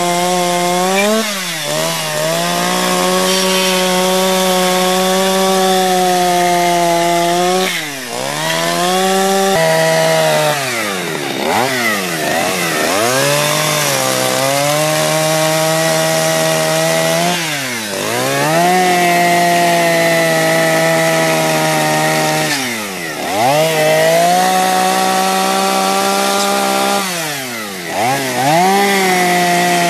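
Two-stroke chainsaw running at high revs while carving wood. Its engine pitch dips sharply and climbs back again and again, in a quick cluster around the middle and then every few seconds.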